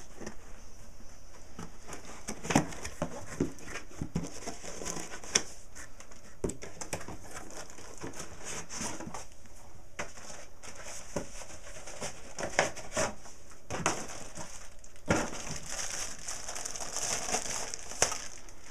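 Packaging crinkling and rustling as a new computer power supply is taken out of its box and handled, with many short clicks and knocks throughout.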